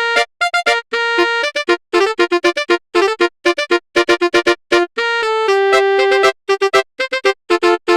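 Telolet basuri bus-horn melody played as a virtual instrument in FL Studio Mobile: a quick run of short, bright horn notes with brief gaps between them, a few held for about half a second.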